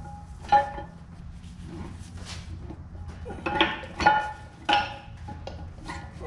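Steel parts of an excavator hydraulic piston pump clinking and ringing as its pistons and barrel are worked into the pump housing by hand: a handful of sharp metallic clinks, the loudest cluster about three and a half to five seconds in, over a steady low hum.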